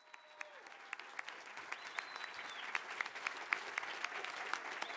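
Audience applauding, fading in and growing louder over the first couple of seconds, then holding steady.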